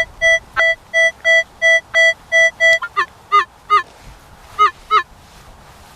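Metal detector beeping on a buried target: a run of identical short beeps at one steady pitch, about three a second, for nearly three seconds, then a handful of shorter chirps at a different pitch that slide up and down.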